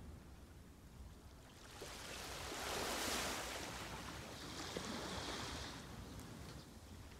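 Sea waves on a shore: one wave swells up and breaks about three seconds in, then washes back with a higher hiss.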